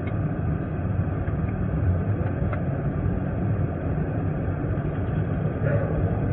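Steady low rumble of a car's engine and road noise inside the cabin of a moving police cruiser.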